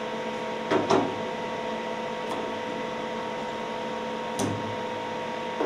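Metal knocks and clicks as A/C hose assemblies are set into the test-chamber tooling and clamped. There are two close knocks about a second in and another near the end, over a steady machine hum with fixed tones.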